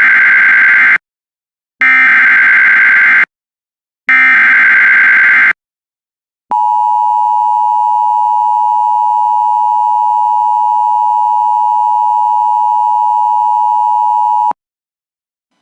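Emergency Alert System header: three bursts of SAME digital data tones, the first already under way, then after a short gap the EAS two-tone attention signal (853 and 960 Hz) held steady for about eight seconds before cutting off sharply. The sequence opens a new emergency alert, here a flash flood warning.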